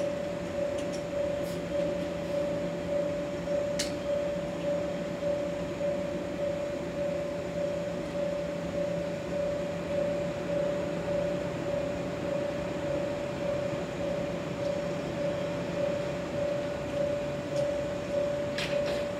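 Steady hum with a high tone from a stationary 117-series electric train's auxiliary equipment idling, pulsing slightly in an even rhythm.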